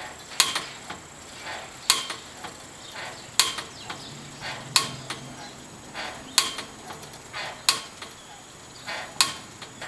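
Main Street pedicab rolling, with a sharp clunk about every second and a half and fainter knocks between: a recurring clunk somewhere on the pedicab whose origin has not yet been found.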